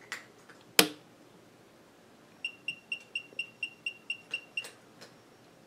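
A loud click, then a SINO SDS6-2V digital readout beeping about ten times at one high pitch, about four beeps a second, as it powers up and runs its display self-test. A few faint clicks come near the end.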